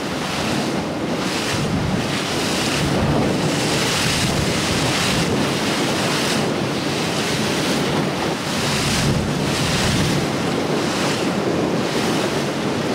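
Wind rushing over the microphone and water washing past the hull of a boat under way: a steady hiss that swells and fades about once a second, over a low steady rumble.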